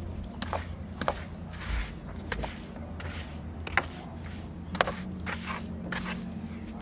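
Intermittent scrapes and sharp light clicks of hands-on work, over a steady low hum.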